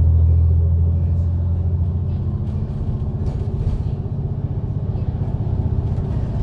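Diesel engine of a MAN Lion's City double-decker bus running under way, heard as a loud low drone from on board. It is strongest in the first two seconds, then eases into a rougher, pulsing hum.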